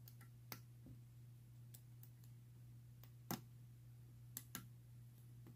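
A few faint, sharp metal clicks of lockpicking tools working a Best padlock, the loudest about three seconds in and two in quick succession about a second later, over a low steady hum.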